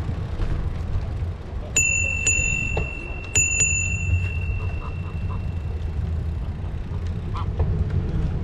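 Bicycle bell struck four times, in two quick pairs, its clear ring carrying on for a couple of seconds, rung at geese crossing the road. Underneath is a steady low rumble of wind on the microphone.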